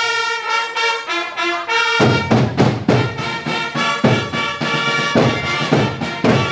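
Fanfare of chiarine (herald trumpets) holding long notes. About two seconds in, drums join with a steady beat of roughly two strokes a second.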